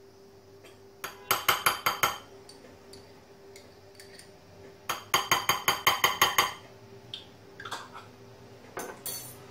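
A spoon clinking against a small glass mustard jar and a bowl while mustard is scooped out and knocked off into yogurt. There are two runs of quick, even taps, the second longer, and a single knock near the end.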